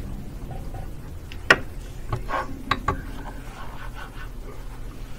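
A single sharp click about a second and a half in, followed by a few fainter short knocks, over a steady low hum of room noise.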